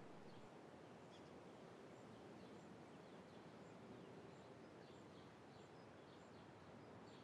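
Near silence: faint outdoor ambience with sparse, faint bird chirps.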